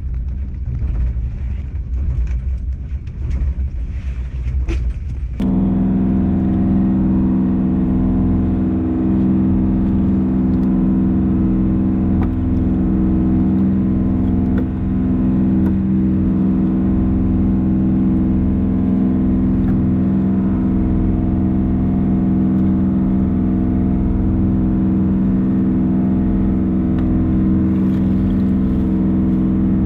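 Fishing boat machinery: a low rumble with small clicks and clatters, then about five seconds in a motor comes on suddenly and runs with a steady, unchanging hum.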